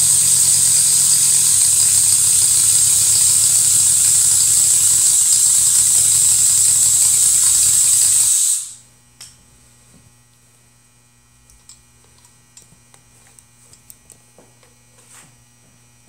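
A loud, steady machine noise with a hiss over a low buzz cuts off suddenly about eight and a half seconds in. After it there is only a low hum and faint light clicks and knocks of metal parts as the crankshaft is set into the engine block.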